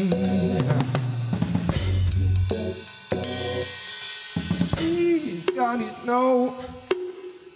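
Live band music driven by an acoustic drum kit: snare, bass drum and Zildjian ZBT cymbals played in a busy groove over a low bass line. The drums thin out in the second half as a gliding melody comes in, and the level dips just before the end.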